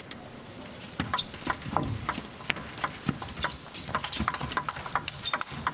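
Table tennis rally: the ball clicks off the table and the players' bats in quick alternation. The knocks come about three to four a second, starting about a second in.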